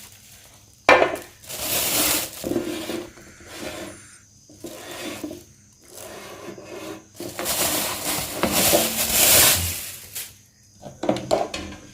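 Packaging being handled as the steamer is unpacked from its box: rubbing and scraping in bursts, with a sharp knock about a second in and a few clicks near the end.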